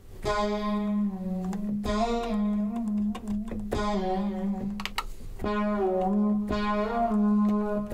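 Roland D-50 synthesizer playing sustained chords over a held bass note, a new chord every second or two, with the pitch wavering slightly up and down. The player is testing its just-repaired pitch bender.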